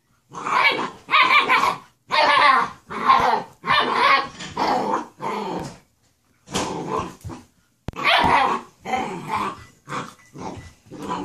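A Weimaraner and a German Shorthaired Pointer puppy in rough play, growling and barking in a quick run of short bursts, about two a second, with a brief pause about six seconds in.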